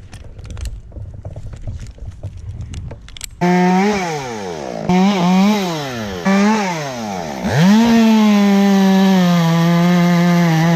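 Chainsaw running at high revs, starting abruptly a few seconds in. Its pitch sags and climbs several times as it is throttled and loaded, falls almost to idle about halfway through, then revs back up and holds steady at full throttle. Before it starts there are only faint scattered clicks and rustling.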